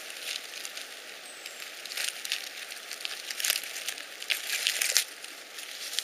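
Rustling and crackling of moss, grass and dry leaf litter as a hand parts the ground cover around chanterelles, in a few short irregular bursts.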